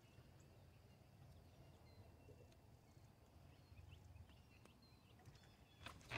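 Near silence: faint outdoor ambience with a few faint high chirps and a couple of light clicks near the end.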